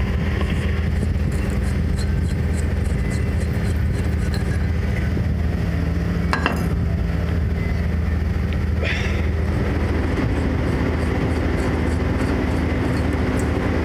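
A steady, low mechanical drone like a running engine, unchanging throughout, with two brief clicks about six and a half and nine seconds in.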